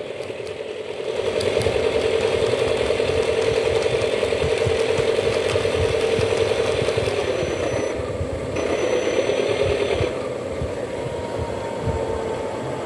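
Model CC201 diesel locomotive running in reverse on a miniature layout while shunting: a steady motor hum with the wheels rattling over the track. It eases off about seven seconds in and stops near ten seconds as the locomotive comes up to the wagon.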